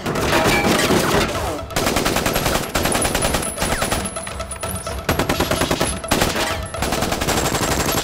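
Gunfight: long bursts of rapid automatic gunfire, many shots a second, broken by a few short pauses.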